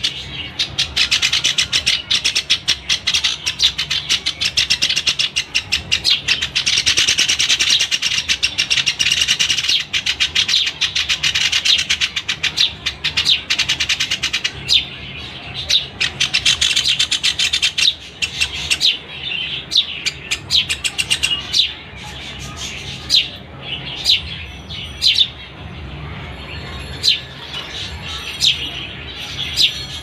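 Young Java sparrows chirping rapidly and without pause as they beg to be fed. A little over halfway through, the dense chirping gives way to separate sharp chirps about a second apart.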